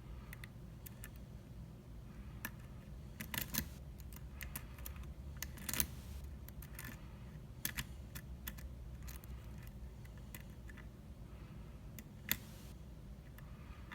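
Hook pick and tension bar working inside an Abus XP10 euro cylinder during single pin picking: irregular small clicks and ticks, a few sharper ones about three and a half, six and twelve seconds in. Many of the clicks are the pick catching the warding rather than pins setting.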